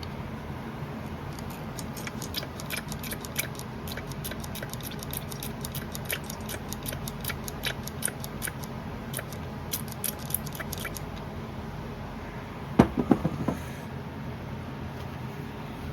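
Hydraulic lifters being filled with oil from a squeeze oil can and handled: a long run of small quick clicks and ticks, then a short clatter of metal knocks near the end.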